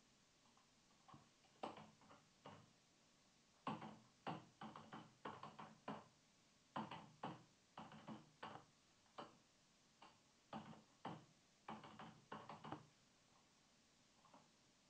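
Computer keyboard being typed on: a run of quick, uneven key clicks that starts about a second in and stops about two seconds before the end.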